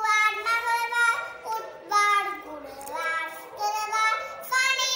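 A young girl singing a days-of-the-week rhyme on her own, in short held notes that step up and down.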